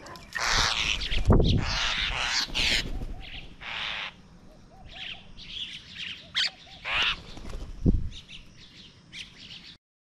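A captured myna held in the hand giving harsh distress squawks, loudest and most continuous in the first three seconds, then shorter calls. Two low thumps come about a second in and near the end.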